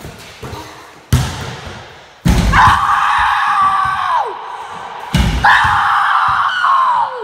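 A ball slams hard against a wooden wall three times. After each of the last two slams comes a long, loud, high cry of nearly two seconds that drops in pitch as it ends.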